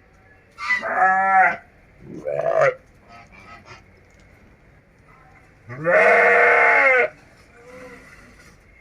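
Goats bleating: three loud, wavering bleats, the last one the longest at about a second, with fainter bleats in between.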